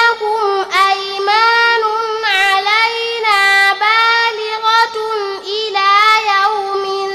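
A young girl's voice in melodic, chanted Qur'an recitation, drawing out long held notes with small ornamental turns of pitch and only brief breaks for breath.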